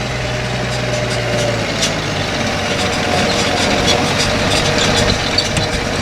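Tractor engine running steadily as the tractor and plough pass close by, its deep low tone dropping away about a second and a half in.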